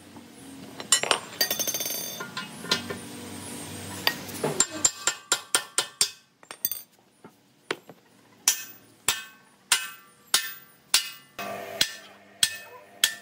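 Hammer blows on steel, each strike ringing briefly. A run of quick taps comes first, then steady strikes about every half second.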